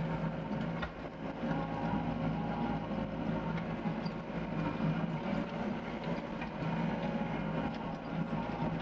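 Doosan DX55 mini excavator's diesel engine running steadily while the machine backs up.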